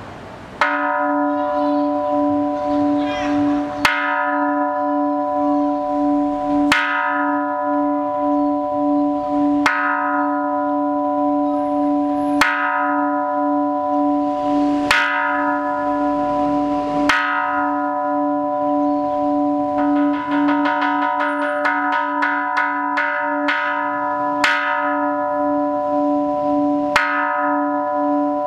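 Hanging Buddhist temple bell struck with a hand-held mallet, about one stroke every two to three seconds, each ringing on with a wavering hum under the next. About two-thirds of the way through, the strokes quicken into a fast roll that stops, then the slow strokes resume.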